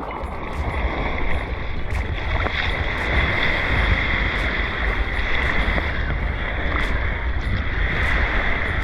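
Wind buffeting the microphone over the sea, with a steady high-pitched hum running through it.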